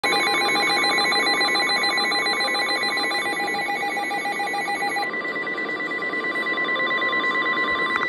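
Several NOAA weather alert radios going off together for a River Flood Warning: rapid electronic alert beeps over the broadcast's steady warning alarm tone. Some of the beeping stops about five seconds in.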